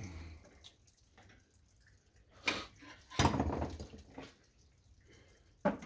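A few sharp clicks and clunks of tools and parts being handled, the loudest about three seconds in.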